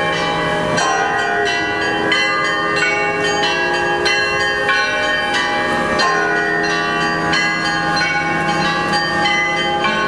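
Kazan Cathedral's Russian Orthodox church bells ringing a peal: several bells struck in quick succession, about three strokes a second, over a low bell tone that sounds throughout.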